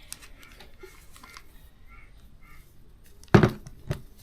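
Two sharp knocks of kitchenware being handled, about half a second apart near the end, with faint light clatter before them.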